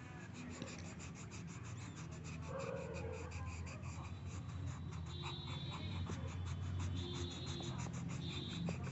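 Colour pencil shading on paper: quick, rhythmic back-and-forth scratching strokes.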